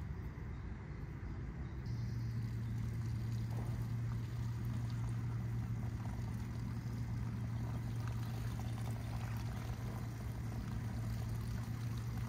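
Horse drinking from a water tub, with sipping and small water sounds, over a steady low hum that sets in about two seconds in.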